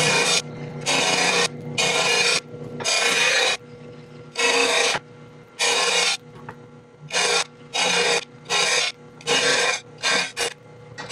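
RBG 712 blade grinder's wheel grinding the edge of a steel lawnmower blade in a series of short passes, about a dozen, each under a second, with the motor's steady hum between them. The passes reshape an edge that had been hand-ground at the wrong angle.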